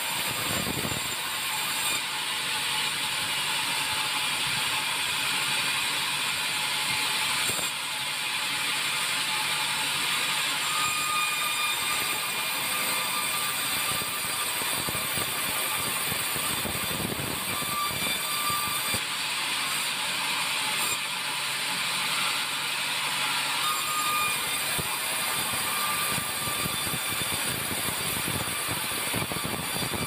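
Large vertical band sawmill running, its blade cutting white meranti timber into thick boards: a steady, continuous sawing noise with no pauses.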